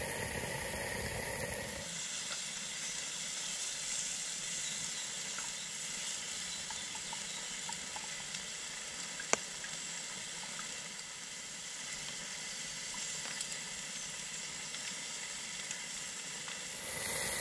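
Bacon and sausages sizzling on a ridged griddle pan over a portable gas stove: a steady frying hiss. A single sharp click about nine seconds in.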